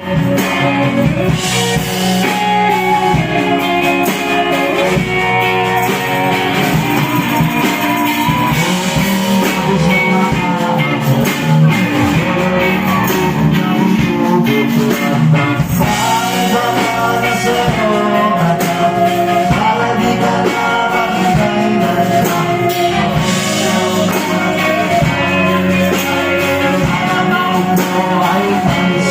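Live rock band playing loudly: electric guitar and drums, with a singer.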